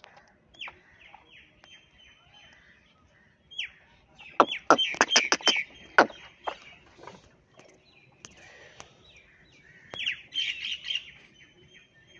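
Birds chirping: short falling chirps, with a loud run of rapid, harsher calls about four to six seconds in and again around ten seconds.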